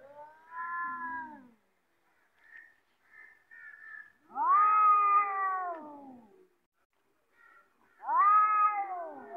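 Domestic cats yowling at each other in a standoff: three long drawn-out yowls, each sliding down in pitch at its end, the one about four seconds in the loudest, with a few faint short mews between them. These are threat calls between two cats squaring up to fight.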